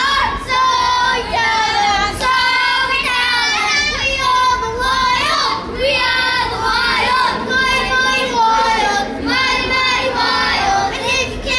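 A child singing a melody in a high voice.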